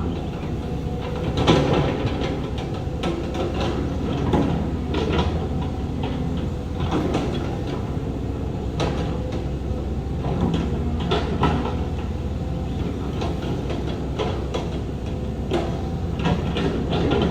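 Heavy diesel earthmoving machinery running steadily, with irregular metallic clanks and knocks every second or so.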